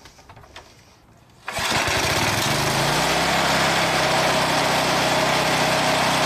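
Briggs & Stratton 375 lawn mower engine catching about a second and a half in, rising in speed and then running steadily. It now revs up properly because the bent bracket that tensions its throttle spring has been straightened.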